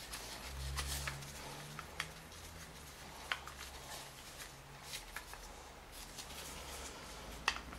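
Faint handling sounds: a few light clicks and rustles as gloved hands work on the timing chain guide rails on an engine block, over a low steady hum.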